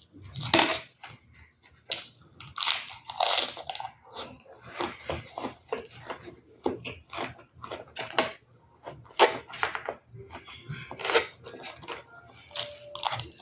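A person eating chicken and rice close to the microphone: irregular crunchy bites and chewing.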